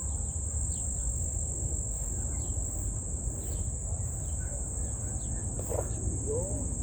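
Steady, unbroken high-pitched insect chorus of crickets, with a few short faint chirps above it.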